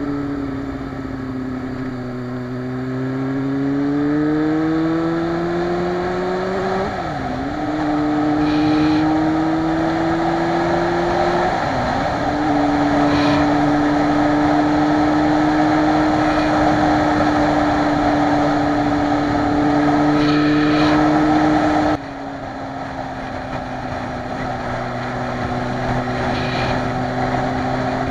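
Motorcycle engine pulling through the gears: its pitch climbs, drops sharply at two upshifts, then holds steady at cruising speed, with wind rushing over the microphone. Near the end the sound drops suddenly in level and the engine settles at a lower pitch.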